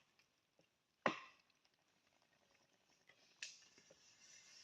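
A single sharp knock about a second in, then near quiet with a faint hiss that builds near the end.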